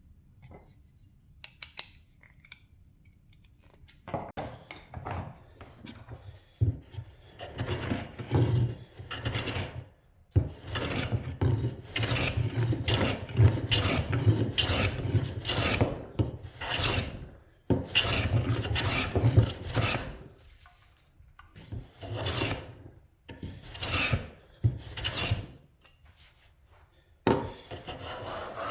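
Bedrock 605C hand plane being pushed along a wooden board: a series of scraping planing strokes taking shavings, close together at first and then separated by short pauses.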